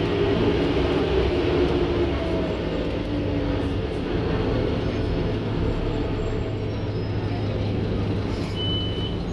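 Scania N230UD bus's diesel engine and driveline running under way, heard inside the passenger saloon as a steady drone whose pitch shifts slowly with road speed; the uploader calls the bus a tired beast. A brief high beep sounds near the end.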